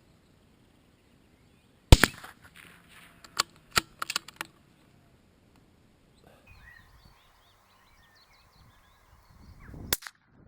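A single sharp rimfire rifle shot about two seconds in, followed by several lighter clicks over the next two and a half seconds and another sharp click near the end.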